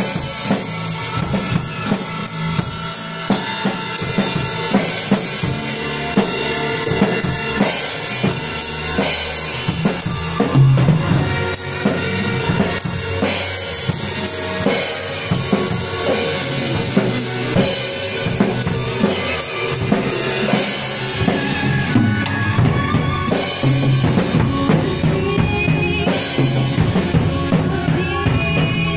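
Acoustic drum kit played steadily through a song, with bass drum, snare and cymbal strokes over pitched accompanying music.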